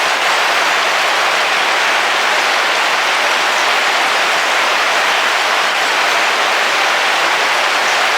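Heavy rain falling on the roof of a camping car, heard from inside: a dense, steady hiss with no breaks.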